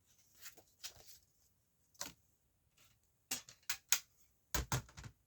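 Paper CD booklets being handled and their pages turned: a run of short rustles and snaps of paper, coming more closely together over the last two seconds.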